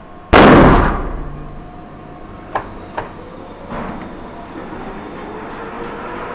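A single shot from an Uberti 1873 lever-action rifle, very loud, with a ringing tail of about half a second. About two seconds later come two short sharp metallic clicks, less than half a second apart, typical of the lever being worked to eject the case and chamber the next round.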